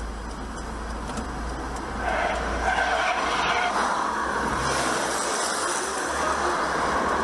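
Road traffic: cars driving past on the street, a steady hiss of tyres and engines that gets louder about two seconds in.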